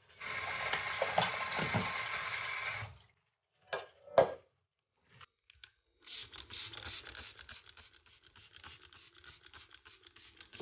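A wet kitchen countertop being scrubbed by hand in quick, repeated scraping strokes from about halfway in. Before that, a steady hiss for about three seconds, then two short knocks.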